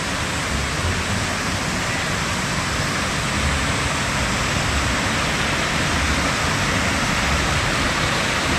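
Steady rushing of falling water from a waterfall, an even noise with no breaks.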